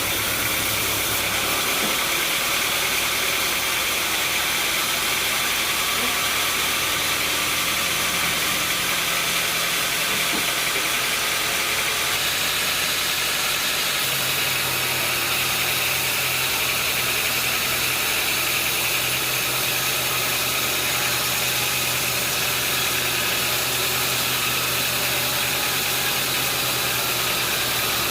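An engine running steadily without let-up. A low hum underneath shifts in pitch about a second and a half in and again about fourteen seconds in.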